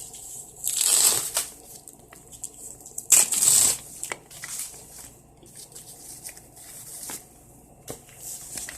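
Rustling and crinkling as a new leather crossbody bag and its wrapping are handled, with scattered small clicks and taps. Two louder rustles come about a second in and a little after three seconds in.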